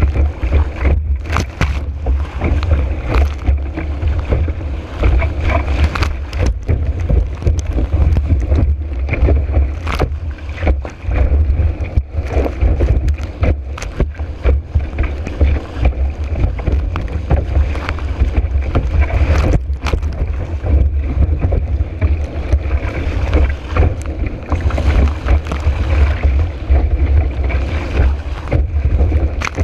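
Strong wind buffeting a GoPro microphone mounted on a board planing at speed over choppy water, with a constant low rumble, water rushing past, and frequent short slaps as the board hits the chop.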